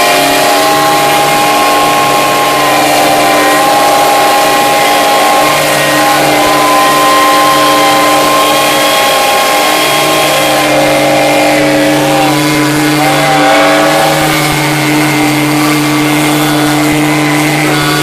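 Many steam engine whistles blowing together in one sustained, loud chord of different pitches over a hiss of steam, with single whistles cutting out and coming back in partway through.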